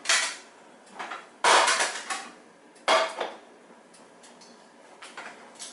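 Plates and cutlery clattering as they are handled and set down: a few separate clinks and knocks, the loudest about a second and a half in, with a short ring after it.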